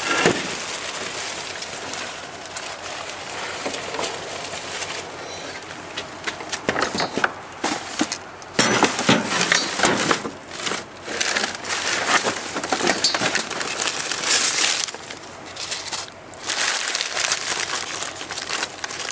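Trash being rummaged through in a dumpster: irregular crinkling, crackling and rustling of plastic bags, paper and packaging being moved and pulled about, busier and louder from about six seconds in.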